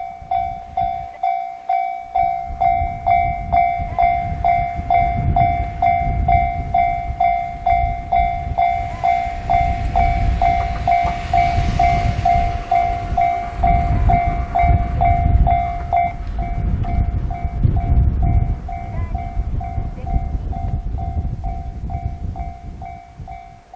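Japanese railway level-crossing alarm starts ringing its electronic bell at about two dings a second. Strong wind buffets the microphone with a gusting low rumble, and a train passes through the crossing, loudest in the middle.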